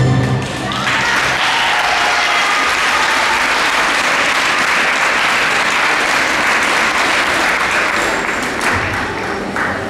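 Backing music ends about half a second in, and an audience breaks into steady applause that fades slightly near the end.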